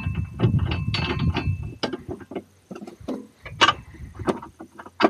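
Irregular metallic clicks and clinks of bolts against the steel toolbox bracket as they are started by hand, uneven in spacing rather than a steady ratchet rhythm.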